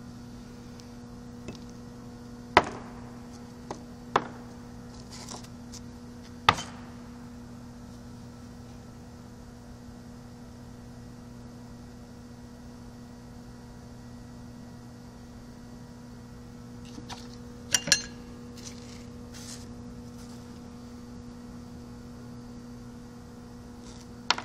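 A few sharp, isolated clicks of small steel parts, loose bearing balls and ball cages from a dismantled caster wheel, tapping against each other and the work surface as they are handled. The three loudest come in the first seven seconds and a quick double click falls past the middle, over a steady low electrical hum.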